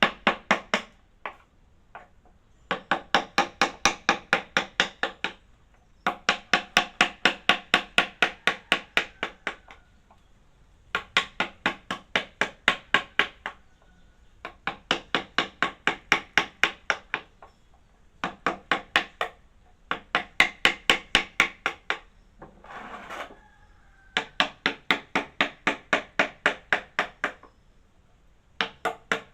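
Rapid, even hammer tapping on a wooden workpiece, about five ringing strikes a second, in runs of a few seconds with short pauses between. About 23 seconds in, a short scraping sound breaks in between runs.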